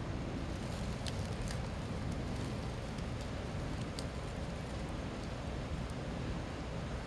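Steady outdoor background rumble, strongest in the low range, with a few faint, sharp crackles.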